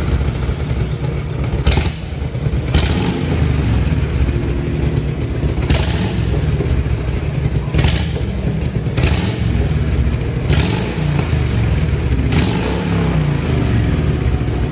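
Harley-Davidson touring motorcycle's V-twin engine running and revved in short throttle blips every second or two, its pitch rising and falling with each twist of the throttle.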